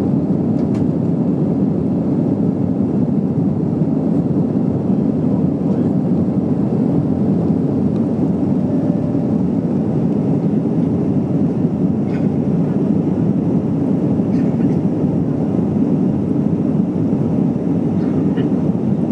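Steady cabin noise of an Airbus A321-214 in its climb after takeoff: the CFM56 turbofans and the rush of air heard from inside the cabin as a low, even rumble.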